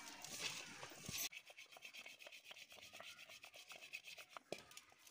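Faint rubbing and soft scraping of a hand tossing flour-coated raw potato sticks in a steel bowl, dropping to scattered light ticks after about a second.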